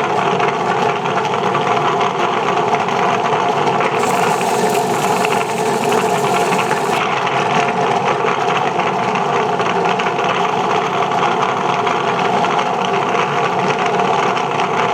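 Rotary wet-sanding machine running steadily, its small electric motor humming as concrete is sanded on the spinning disc. A brighter hiss joins in about four seconds in and drops away a few seconds later.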